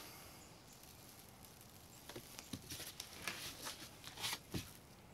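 Faint handling noise as barbecue rub is shaken from a shaker bottle onto a pork butt and a gloved hand turns the meat on a metal sheet pan. A run of soft crackles and taps starts about halfway through and ends with a low thud near the end.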